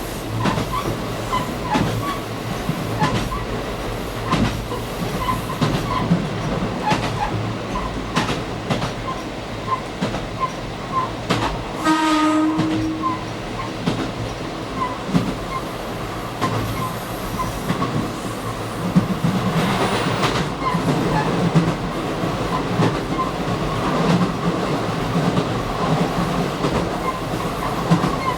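Diesel limited-express railcar running along the line, with engine and wheel rumble and the regular clickety-clack of wheels over rail joints. About twelve seconds in there is one short horn blast.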